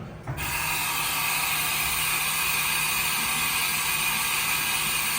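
Haas VF-0E CNC vertical machining center working with its spindle at 6000 RPM: a steady, even hiss with a faint hum under it that starts suddenly just after the start.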